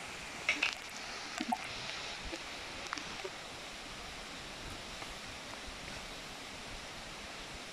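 Rocks being shifted and pried by hand and with a long bar: a few sharp knocks of stone and tool about half a second in, around a second and a half, and near three seconds, over a steady rushing hiss.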